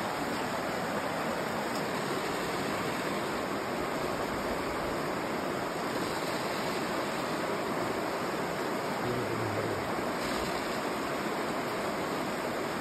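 Steady rushing of a mountain stream.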